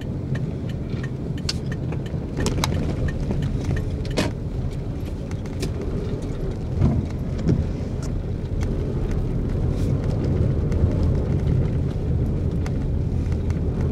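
Car driving, its steady engine and road rumble heard from inside the cabin, with a few light clicks.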